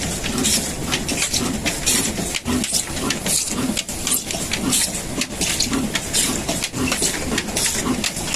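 Pak Asia 18 HP single-cylinder diesel engine running with a slow, even beat, each stroke a low thump with a sharp mechanical clatter on top.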